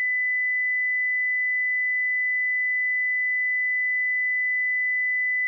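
A single steady high-pitched electronic tone, one pitch held without a break.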